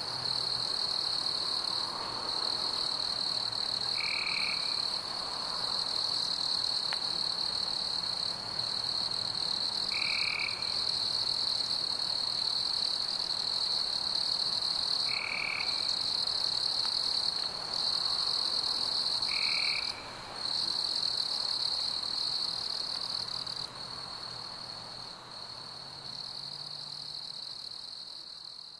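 Outdoor nature ambience of frogs and insects chorusing in a steady high-pitched drone, with a short higher chirp about every five seconds; it fades away near the end.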